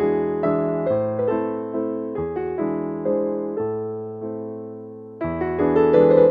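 Solo piano music playing chords, each note struck and fading, with a quieter held passage that swells louder again near the end.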